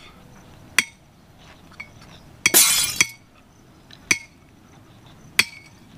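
A survival-kit glass-breaker striking a hard glass bottle that does not break: about four sharp clinks a second or so apart, the second a longer, louder clatter.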